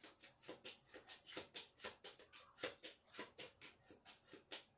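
A deck of playing cards being shuffled by hand: a quick, even run of faint card slaps, about six a second.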